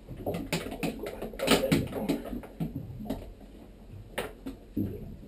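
Irregular clicks, taps and knocks of hard plastic trim being fitted by hand at the base of a Vacuflush marine toilet, the foot-pedal cover sliding over its metal arm, with louder knocks about one and a half and four seconds in.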